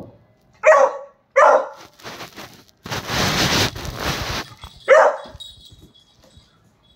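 Beagle barking: two short, loud barks close together near the start, and a third a few seconds later. Between them there is a noisy rush lasting about a second and a half.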